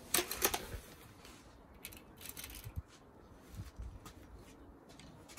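Hatsan Striker Edge .22 spring-piston air rifle being handled between shots: a quick cluster of loud metallic clicks in the first second, typical of breaking the barrel and cocking the spring. A few lighter clicks follow about two seconds in.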